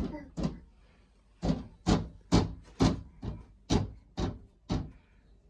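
A baby slapping a wall with open palms: about ten sharp slaps, roughly two a second, with a short pause after the first two.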